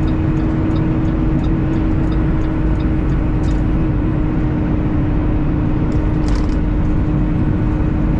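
Semi-truck cruising on the highway, heard from inside the cab: a steady engine and road drone with an even hum.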